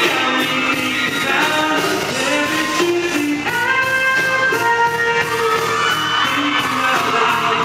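Male lead vocalist singing a pop-rock song live into a handheld microphone, with long held notes, backed by a full live band with electric guitar and drums.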